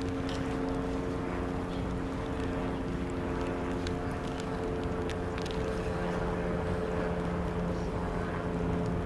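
Steady drone of running engines, holding a constant pitch throughout, with a few faint clicks.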